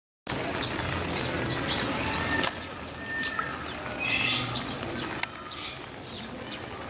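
Birds chirping and calling in short, scattered notes over a low steady background hum; the sound cuts in abruptly a moment in.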